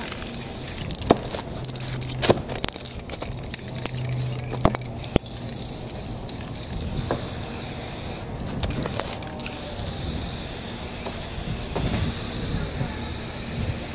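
Aerosol spray paint cans hissing as paint is sprayed onto poster board in long passes, with a few sharp knocks in the first few seconds and a short break in the spray about eight seconds in.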